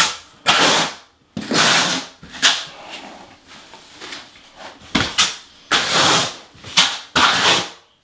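Euro notch trowel scraping thinset mortar onto a wall in repeated sweeping strokes, about eight of them, each starting sharply and fading over half a second or so.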